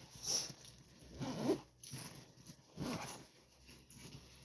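Backpack zipper being pulled shut on the front pocket in about three short rasping strokes.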